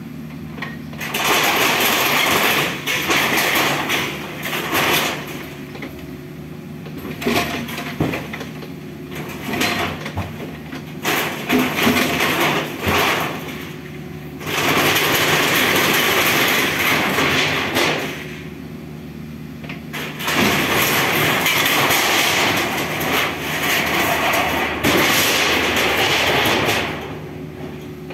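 Mini excavator's diesel engine running steadily while its arm tears down a building's roof and walls: several long spells of loud crashing, scraping and clattering of metal roofing sheets and debris, with quieter gaps where only the engine is heard.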